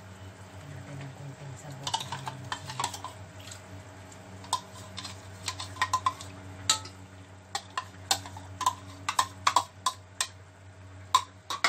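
A metal spoon clinking and scraping against a small ceramic bowl as seasoning is scooped out into a pan of simmering broth, giving many irregular sharp clicks over a low steady hum.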